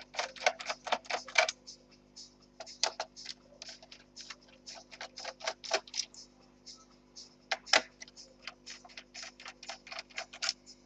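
A run of short, sharp clicks and ticks, several a second in quick bursts, from a screwdriver working the display hinge screws out of an Acer Aspire 5541G laptop. A faint steady hum lies underneath.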